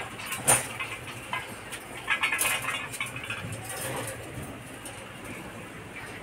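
Scattered light clicks and rustling from puppies being handled and scrabbling about in a wire cage.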